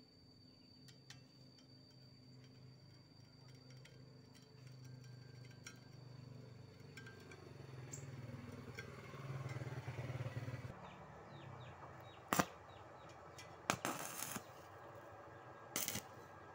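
Stick welding electrode striking an arc on a steel plate, over a low hum. In the last few seconds, three short crackling bursts as the arc catches and breaks off again.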